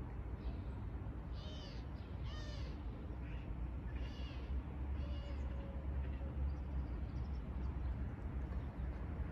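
Short animal calls, about five of them roughly a second apart through the first half, each a brief pitched call, over a steady low background rumble.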